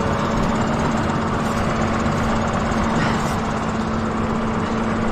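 Fendt tractor's diesel engine running steadily at a constant speed.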